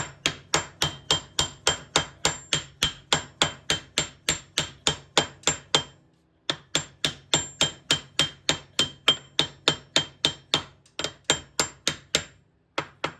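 Hammer tapping a steel taper hub onto a garden tractor's rear axle shaft: quick, even metallic taps with a ring, about four a second, pausing briefly about halfway and ending with one last tap as the hub seats flush.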